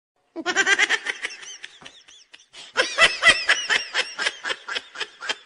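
Comedy laughter sound effect: a person laughing in quick repeated bursts, one bout starting about half a second in and trailing off, then a second, louder bout of rapid laughs.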